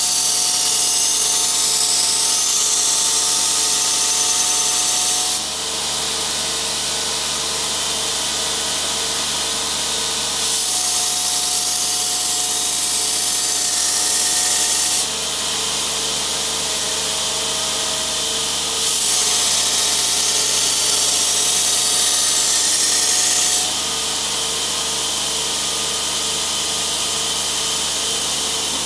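Bench belt grinder running steadily while a steel blade is pressed against the belt three times for about five seconds each. Each pass adds a loud grinding hiss as the edge is sharpened; between passes only the motor and belt run.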